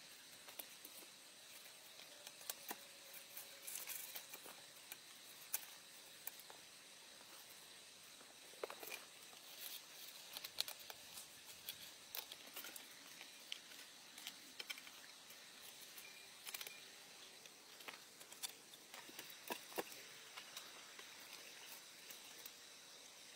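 Faint rustling with scattered light clicks and small knocks from hands working twine around stacked logs and a person shifting about on a log frame.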